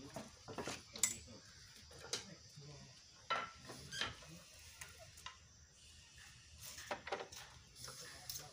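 Scattered light metallic clinks and knocks from handling a 12 hp single-cylinder stationary diesel water-pump engine before it is cranked. The engine is not yet running.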